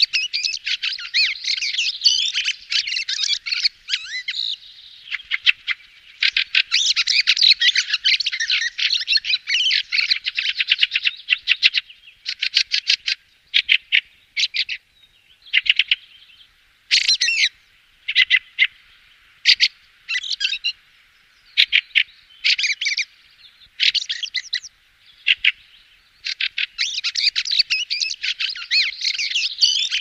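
Fieldfare (Turdus pilaris) chattering song: long, fast runs of high twittering chatter, broken in the middle into shorter separate phrases with brief pauses, then a long run again near the end.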